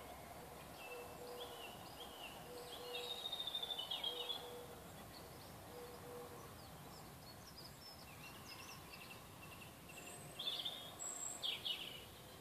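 Songbirds singing: varied chirps and warbles, louder in two spells, a few seconds in and near the end, over faint steady outdoor background noise.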